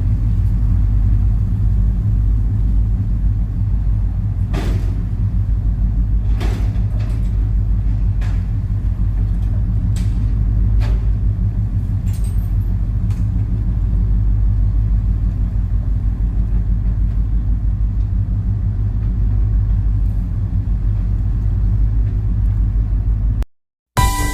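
A large engine running with a steady deep rumble, with a few scattered sharp knocks over it. The sound cuts off abruptly just before the end.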